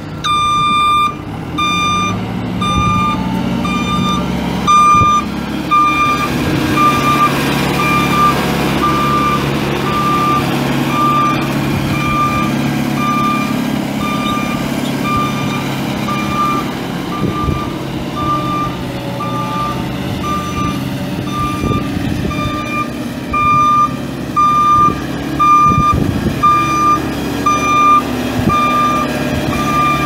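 Backup alarm beeping steadily, about one and a half beeps a second, over the running Yanmar 4.4 L four-cylinder turbo diesel of a 2005 Komatsu WB140-2N backhoe: the machine is in reverse.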